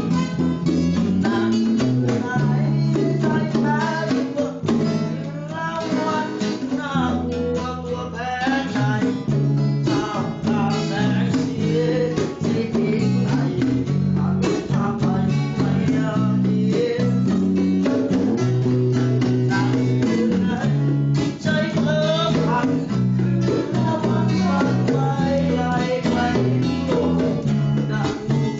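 Music: a guitar-led song with a bass line and a steady beat, and a melody line over it.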